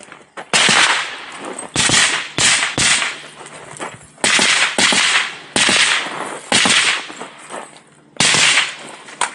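Daniel Defense MK18, a short-barreled 5.56 AR-15 carbine, fired in single shots on a timed stage. About nine loud shots come at uneven spacing, some close pairs half a second apart and others a second or more apart, each with a long echoing tail.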